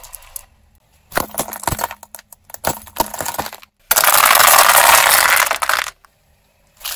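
Car tyre rolling over hard plastic, a scatter of sharp cracks and pops, then a dense two-second run of cracking and shattering as a row of yellow plastic tubes is crushed flat into shards, cutting off suddenly.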